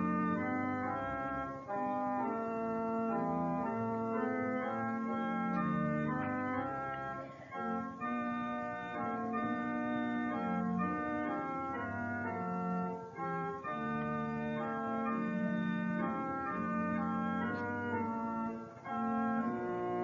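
The 1956 organ of Bethlehem Lutheran Church, Adelaide, playing a hymn in held, full chords that change every second or so, with three short breaks between phrases.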